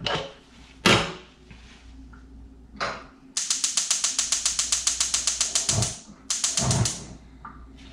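Rapid, even mechanical clicking, about a dozen clicks a second for two and a half seconds, then a shorter second burst, after a couple of knocks.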